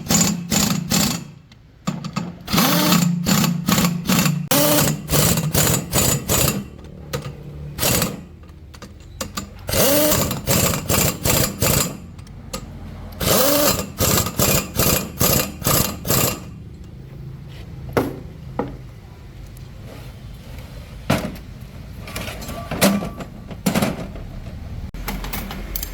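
Power tool run in several bursts of a few seconds each, fast rattling strokes with a motor pitch rising and falling, then a few single knocks near the end.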